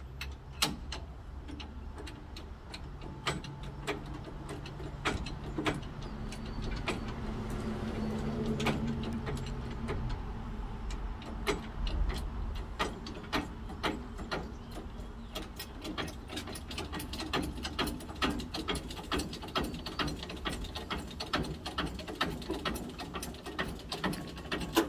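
A small electric winch motor runs with a steady hum for the first several seconds, hoisting the load. From about halfway on, steady metal clicking, about three a second, comes from the crane mechanism as the boom is raised upright.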